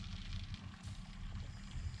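Engine coolant being drawn under vacuum through a refill tool's hose into the truck's cooling system: a steady rushing flow of liquid with a low rumble.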